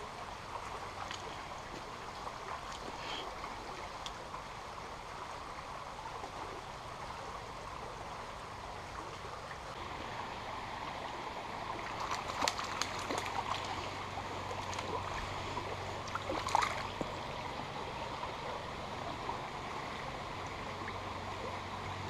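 Shallow stream water running steadily over stones in a riffle. A few short sharp crackles come through about halfway through and again a few seconds later.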